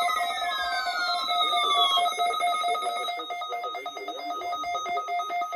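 Electronic tones: two falling pitch sweeps that end about two seconds in, over several steady tones with a fast, ringing flutter like a trilling bell.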